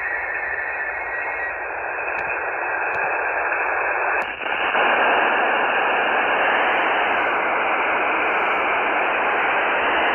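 Steady hiss from a software-defined radio receiver tuned near 27.550 MHz in the 11-metre CB band, with no distinct signal standing out. About four seconds in, the hiss gets louder and a little brighter as the receive filter is widened.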